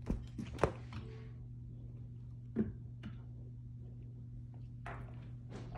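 A cat's paws thumping and tapping on a hardwood floor as it leaps and swats at a swung cloth toy: a few short knocks scattered through, the loudest about half a second in, over a steady low hum.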